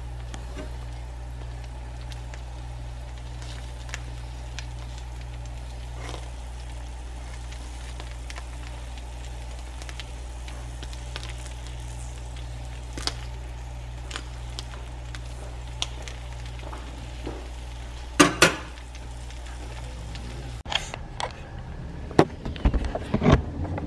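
Ham-and-bread sandwiches sizzling steadily in a nonstick frying pan, with a low steady hum under it and scattered sharp clicks of a metal spatula against the pan. Near the end the sizzling cuts off, and irregular knocks and rustles of handling take over.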